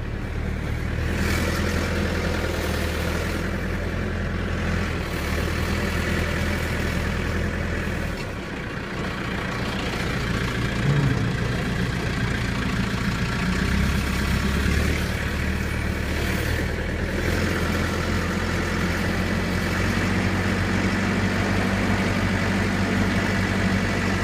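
Backhoe loader's diesel engine running as the machine is driven, a steady low engine note that shifts up and down a few times with throttle and load, dipping briefly about eight seconds in.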